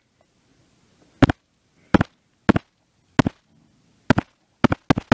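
Sharp taps of a finger on the recording device close to its microphone, mostly in quick pairs. They come about every half second to a second, then faster near the end.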